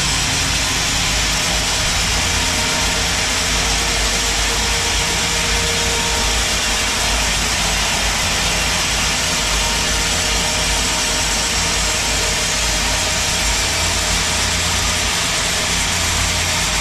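Band sawmill running steadily: a loud, even machine drone with a strong hiss through the high range, never pausing or changing.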